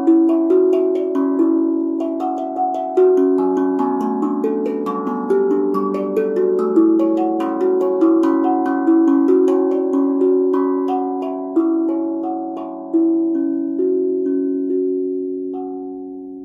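BeatRise 13-inch, 15-note steel tongue drum played with mallets: a slow melody of single struck notes, roughly one a second, each ringing on under the next. The last note dies away near the end.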